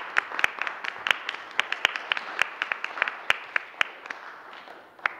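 Audience applauding, with many separate claps, thinning out and dying away towards the end, with one last clap near the end.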